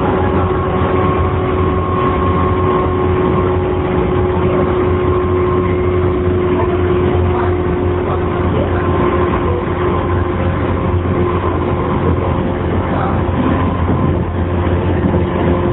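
Running sound inside a JR 115 series electric multiple unit motor car (MoHa 115-2021), with its resistor-controlled traction motors at a steady speed: a steady hum with held tones over rail and air-conditioning noise. Under it is a wind-like noise that the uploader takes for an abnormal noise from this car.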